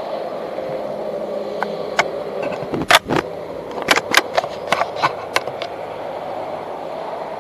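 WLtoys A959 electric RC buggy running with a steady whir. A run of sharp clicks and knocks comes between about one and a half and five and a half seconds in, the loudest near three seconds.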